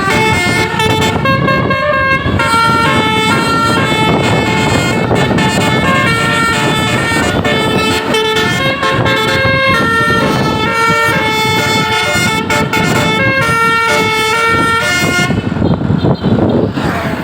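A bus's Basuri telolet air horn playing a melody of stepped, held notes over the noise of the bus and road. The tune stops a couple of seconds before the end, leaving the vehicle noise.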